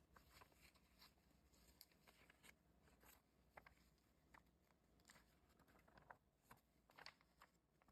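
Near silence, with faint scattered rustles and ticks of paper instruction booklets being handled.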